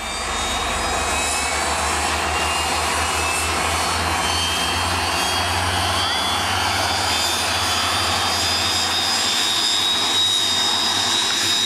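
BAe Hawk jet trainer's turbofan running on the ground: a steady rushing noise with a high-pitched whine that slowly rises in pitch. A low hum underneath fades out about nine seconds in.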